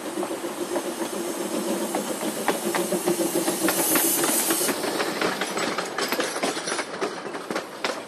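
Eureka & Palisade narrow-gauge 4-4-0 steam locomotive passing slowly at close range: a steady low hum, then a loud burst of steam hiss about four seconds in. Its train of cars follows with a run of wheel clicks over the rail joints.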